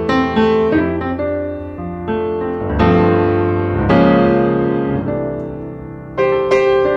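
Classical piano music: notes and chords struck and left to fade, with a loud chord near the end.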